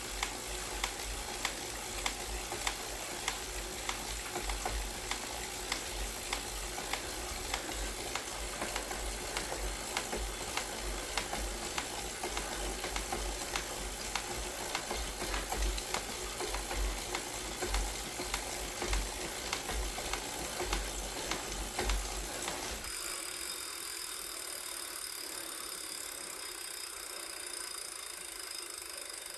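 Wahoo Kickr Core smart trainer running, giving off a steady series of repeated mechanical clicks over a low pulsing rumble: an unwanted clicking noise from the trainer. About 23 seconds in, the rumble drops away and a steady higher whine and hiss remain.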